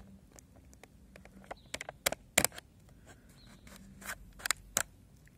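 Clear hard-plastic blister packaging being flexed and pried open by hand: irregular sharp clicks and crackles of the plastic, the loudest about halfway through and a few more near the end.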